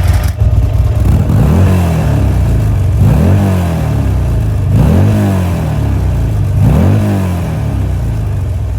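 Buell Lightning XB12S's air-cooled V-twin, through a Termignoni titanium silencer, idling and blipped four times, each rev rising and dropping back to idle, about two seconds apart.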